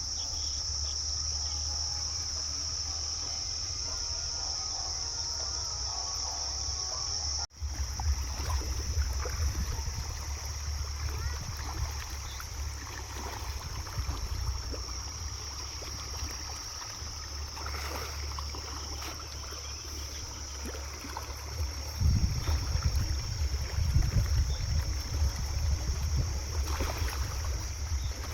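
Insects chirring in a steady high-pitched drone over a low rumble of wind on the microphone. The sound drops out for an instant about seven seconds in.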